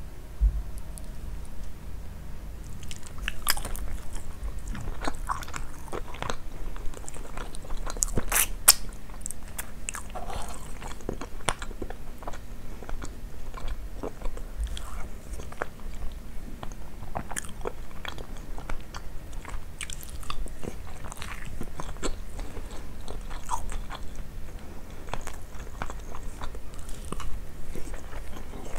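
Close-miked eating sounds from biting and chewing grilled chicken and basmati rice: a steady run of wet mouth clicks and short crunches.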